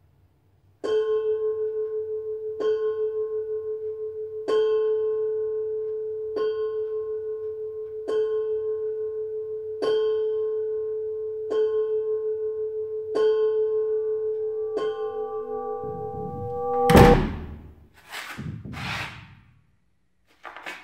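A bell chiming nine times, a strike roughly every two seconds, each ringing on into the next, counting in the start of the ritual. Near the end a loud rising whoosh swells to a burst, followed by two shorter rushing noises.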